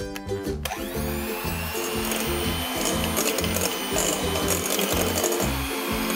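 Electric hand mixer switching on about a second in and running steadily with a thin whine, its beaters mashing banana slices in a glass bowl with irregular clicks, over background music.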